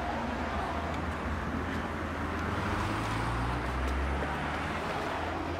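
Steady city street traffic noise: a continuous hum of passing cars with a low engine rumble underneath.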